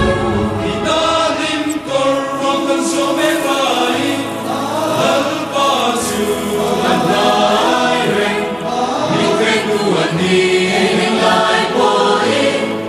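Background music: a song with several voices singing together over sustained bass notes that change every few seconds.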